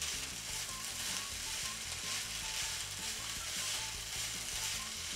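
Rice, chickpeas and nori sizzling steadily in a hot nonstick frying pan while a silicone spatula stirs and tosses them.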